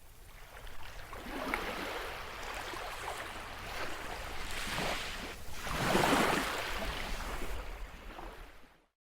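Rushing, surf-like noise that swells in a few surges and fades out near the end.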